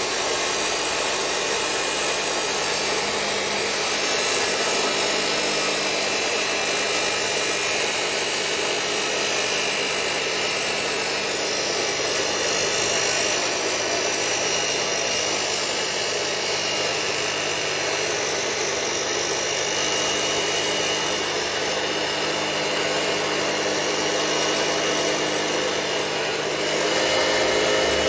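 Harbor Freight Hercules 15-amp cut-off saw grinding steadily through thick steel angle, its abrasive wheel and motor running under load. It grows a little louder near the end.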